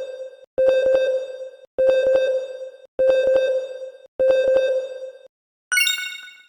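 A ringing electronic ding struck about once every 1.2 seconds, each strike opening with a few quick clicks and fading. Near the end comes one short, higher-pitched ringing sound with sliding tones.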